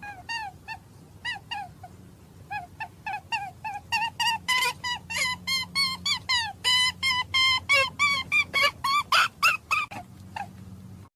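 Many short, pitched animal calls in quick succession, each dipping in pitch. The calls crowd together and grow louder about a third of the way in.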